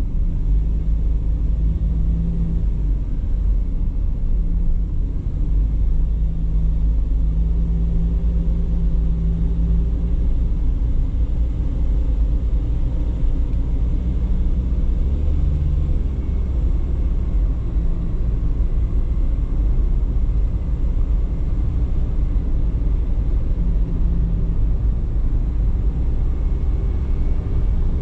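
Steady low rumble of a car driving on a paved road, heard from inside the cabin: tyre and engine noise, with a faint hum that drifts a little in pitch.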